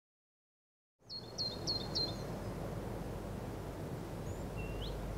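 Outdoor ambience with small birds chirping: a quick run of four short chirps about a second in, then a single rising note near the end, over a steady low rumble of background noise. The sound begins from silence about a second in.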